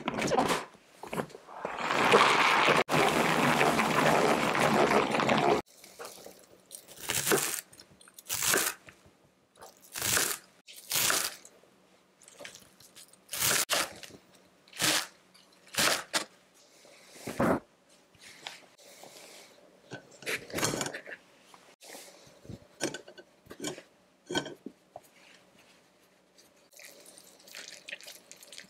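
A salad spinner whirring loudly for about four seconds as its basket spins, stopping abruptly. Then a knife chopping crisp garlic chives on a wooden cutting board, in single crunchy strokes roughly a second apart.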